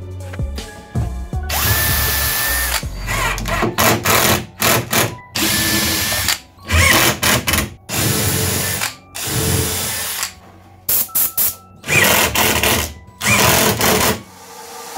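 Cordless drill driving screws up through the steel frame rail into the underside of the MDF worktop, in repeated bursts of about a second that stop and start.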